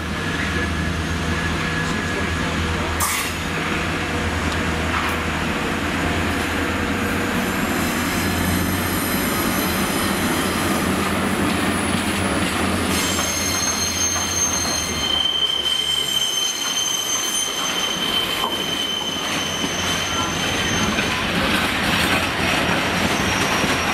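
Class 60 diesel-electric freight locomotive, with its Mirrlees eight-cylinder engine, running past with a low steady drone. Its empty freight wagons follow, and from about midway their wheels squeal in high, ringing tones while the engine sound fades.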